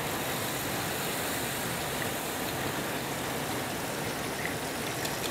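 Prawn heads dusted in cornstarch deep-frying in hot oil, a steady, dense sizzle.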